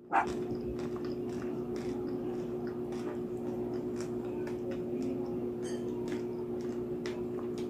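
Close-up chewing of crispy roast lechon pig's head: a run of small crunches and wet mouth clicks, irregular, over a steady low hum.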